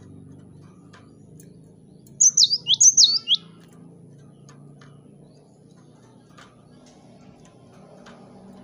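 Cinereous tit (gelatik batu) singing a short, loud burst of sharp, high notes, each sweeping down in pitch, for about a second a couple of seconds in. Faint scattered ticks sound over a low steady hum.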